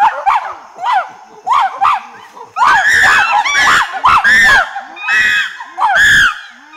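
Wild chimpanzees calling: a pant hoot of short rising-and-falling hoots that builds, about two and a half seconds in, into loud, long screams, with several voices overlapping.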